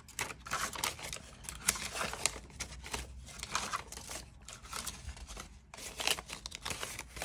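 Paper US one-dollar bills rustling and crinkling as a stack of them is handled and shuffled by hand, in many short, irregular rustles.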